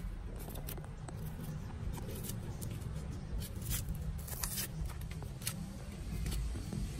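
Large kitchen knife scraping and cutting the papery skin off a red onion: irregular short, crisp scrapes and snicks, several a second, over a steady low rumble.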